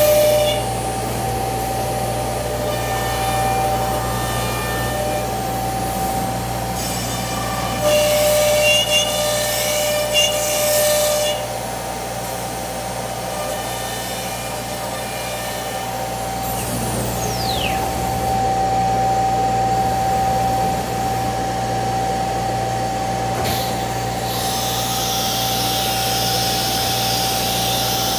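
CNC router spindle running and cutting a wood panel, a steady whine over the hum of the dust extraction. A falling whine sweeps down about 17 seconds in, and a hissing rush of noise comes in near the end.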